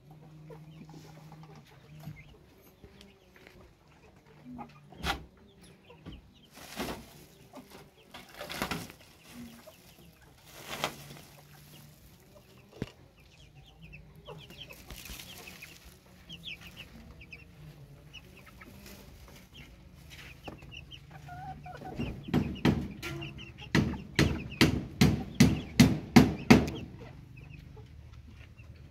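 Chickens clucking, with a few scattered single knocks. Near the end comes a fast run of about a dozen loud thumps, two or three a second.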